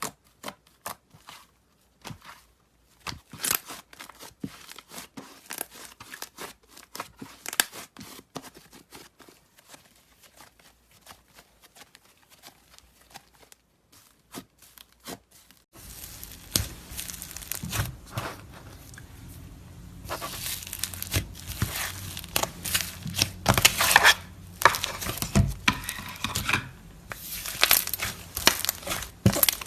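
Crunchy slime being pressed and squeezed by hand: dense, irregular crackling and popping clicks. It grows louder and busier about sixteen seconds in, over a steady background hiss.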